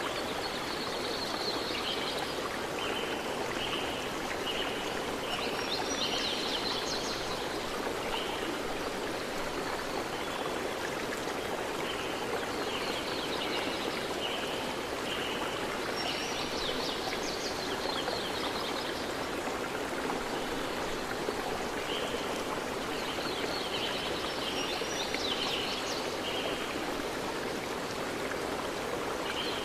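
Steady rushing of a flowing stream with birds chirping in short bursts every several seconds, a nature-ambience backdrop.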